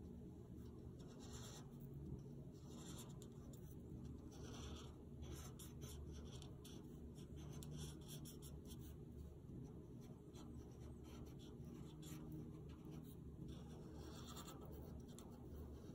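Tip of a felt marker scratching across paper in short, irregular strokes as a drawing is outlined, faint over a low steady hum.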